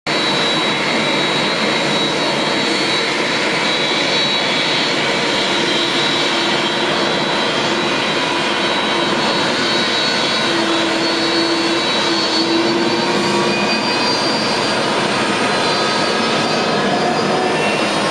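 Boeing 767's twin jet engines running at taxi power as the airliner rolls past: a steady rush of engine noise with a thin high whine over it and a lower hum.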